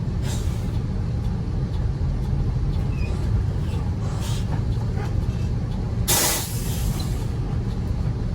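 Bus engine running with a steady low rumble. A loud burst of air-brake hiss comes about six seconds in and lasts about a second, after fainter short hisses earlier.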